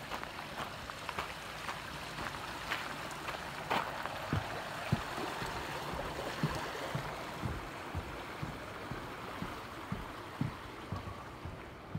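Steady rush of running water from a stream, swelling in the middle, with soft footstep thumps about once or twice a second.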